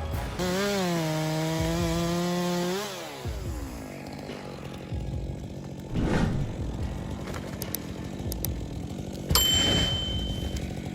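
Chainsaw running at full throttle for about two and a half seconds, then its revs falling off. Later come two sudden heavy hits, the second followed by a short high ringing tone.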